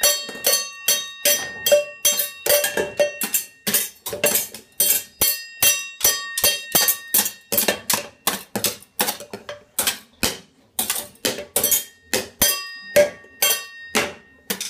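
A toddler drumming with metal kitchen utensils on enamel pots and the stainless steel door of an open dishwasher: a fast, irregular run of clanging strikes, about three a second, each leaving a metallic ring. The banging stops abruptly at the end.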